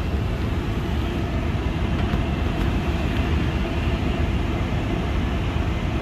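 Gas furnace running with its newly replaced inducer motor and fan: a steady running rumble, strongest in the low end, with no bearing squeal.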